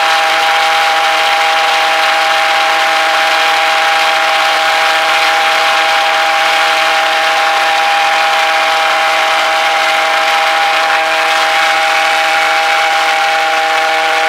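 A 90 mm pulse jet running steadily on a test stand: a loud, continuous drone holding several steady tones over a rushing roar, with no change in pace.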